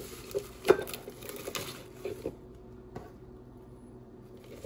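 Fresh cilantro leaves and stems rustling as they are pushed by hand into a plastic blender cup, with one sharp tap under a second in. The rustling stops after about two seconds.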